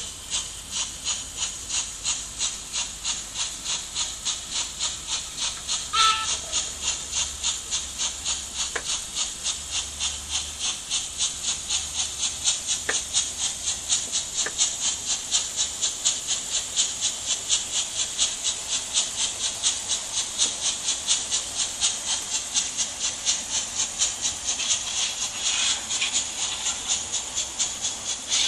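Märklin H0 model steam locomotive running with its sound effects on: an even hissing chuff of about three beats a second as it hauls a freight train, with the hum and rattle of the model wheels on track beneath. One brief, sharper knock sounds about six seconds in.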